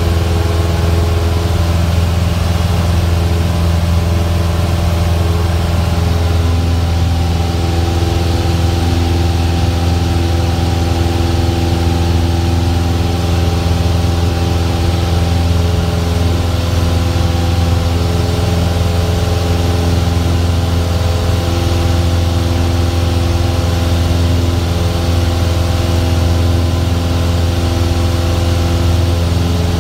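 Single-engine Cessna's piston engine and propeller running steadily in flight, heard from inside the cockpit as a loud, even drone with rushing air over it.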